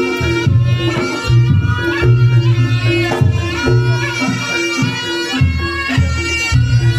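Reog Ponorogo gamelan music: a slompret (reedy Javanese shawm) plays a wavering melody over a steady beat of kendang drums and gongs.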